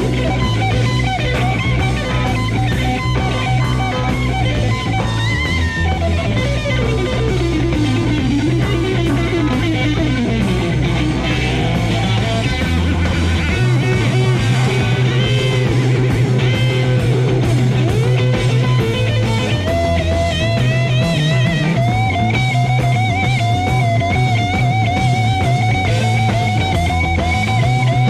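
Hard rock band playing live: electric guitar lead lines full of pitch bends and vibrato over bass guitar and drums, from a cassette recording of an FM broadcast.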